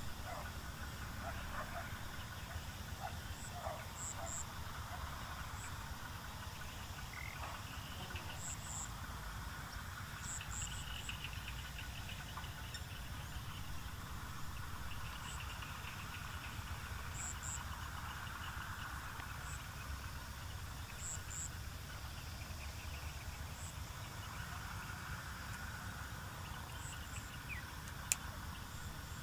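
Countryside ambience: insects trilling, with short high chirps, often in pairs, every couple of seconds, over a low steady rumble. One sharp click near the end.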